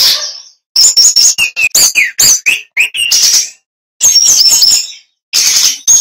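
Brown-chested jungle flycatcher singing loudly: quick runs of chirps and whistled notes sliding up and down, mixed with a few harsher notes, in short phrases broken by brief pauses.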